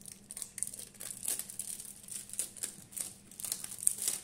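Clear plastic cellophane wrapper crinkling in the hands as it is peeled and pulled off a perfume box: a rapid, irregular crackle.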